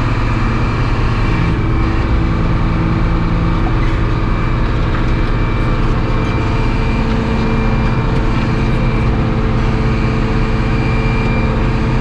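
Steady drone of a sawmill's engine and hydraulic system running, with whining tones that come and go as the hydraulic log dogs are raised off the log.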